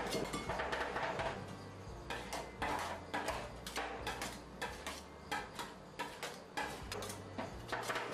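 Metal spatulas chopping and scraping on the steel cold plate of an ice cream roll pan: an irregular run of sharp clicks and taps.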